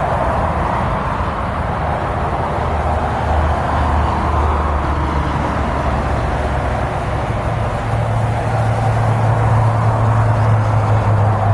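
Steady highway traffic noise from cars passing on a multi-lane road: tyre hiss and engine sound, with a low engine hum underneath that shifts up in pitch about eight seconds in.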